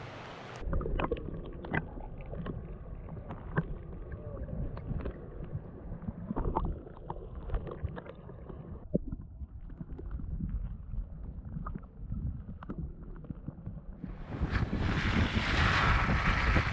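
Stream water heard through an underwater camera: a muffled rushing with many small clicks and knocks from bubbles and pebbles. About 14 seconds in it cuts to a louder rush of wind buffeting the microphone on the side of a truck moving along a snowy track.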